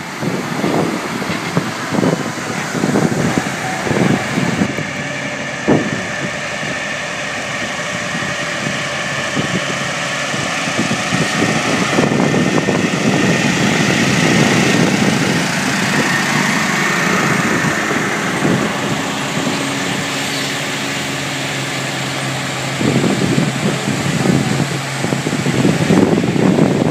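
Heavy diesel engines of Kenworth trucks rumbling at low revs as the trucks drive slowly past one after another, with the sound growing louder and rougher near the end as the next truck comes close.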